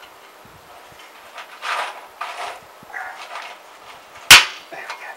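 Allen key working a bolt loose on a motorcycle's chrome exhaust silencer: a few short metallic scrapes, then one sharp metal click about four seconds in, the loudest sound.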